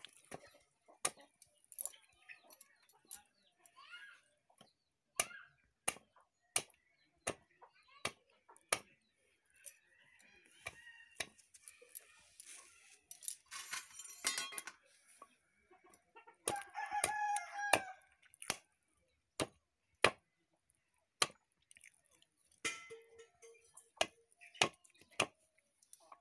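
A heavy cleaver chopping raw chicken legs on a wooden block, in steady sharp chops roughly three every two seconds. A rooster crows in the background about two-thirds of the way through.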